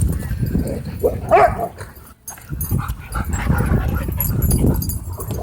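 A dog gives one short call about a second in, over a steady low rumble.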